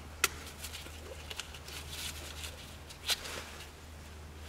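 Small plastic clicks and ticks of a brake pad wear sensor connector and its wire being clipped in at the top of a VW Golf mk4 front brake caliper: two sharp clicks about three seconds apart, with a low steady hum underneath.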